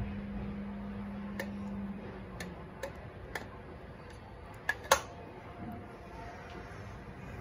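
Scattered light clicks and taps of electrical wire ends being handled and fitted at a ceiling fan's mounting bracket, the loudest a quick pair of sharp clicks about five seconds in. A low steady hum stops about two seconds in.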